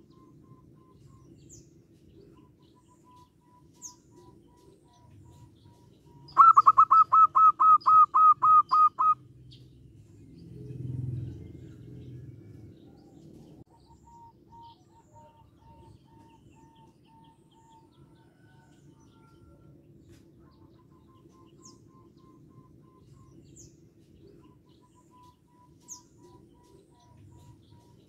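Zebra dove calling: a rapid run of about a dozen loud, evenly spaced staccato notes lasting about three seconds, starting about six seconds in. Faint chirps of other birds sound around it.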